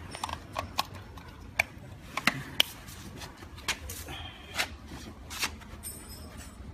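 Scattered light clicks, knocks and rubbing from a plastic plug, power strip and cables being handled, about a dozen irregular sharp ticks. Faint steady high-pitched tones come in near the end.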